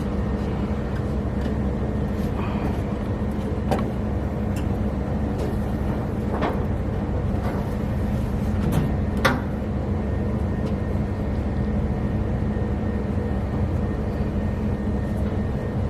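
Steady low mechanical hum with a faint steady tone in it, and a few light clicks or taps, about three of them spread through the middle.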